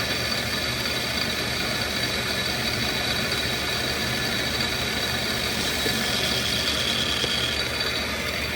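Metal lathe running steadily, taking light cuts off the ends of a rear-axle housing.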